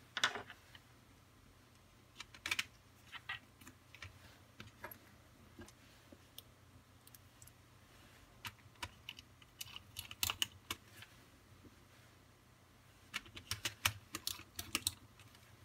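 Light clicks and taps of a thin metal cover plate being set down and pressed onto the plastic underside of a Kato HO turnout, coming in scattered clusters with a denser run of clicks near the end.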